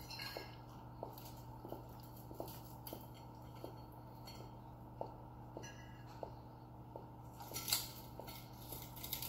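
Quiet eating sounds: chewing with soft mouth clicks at a steady chewing pace, and a few light clinks of cutlery on plates, the sharpest about three-quarters of the way through, over a steady low hum.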